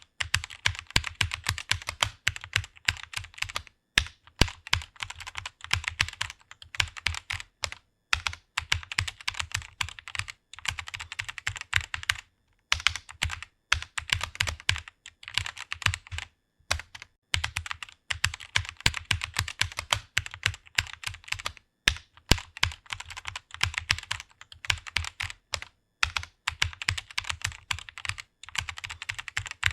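Fast typing on a computer keyboard: rapid runs of key clicks, broken by short pauses of a second or less.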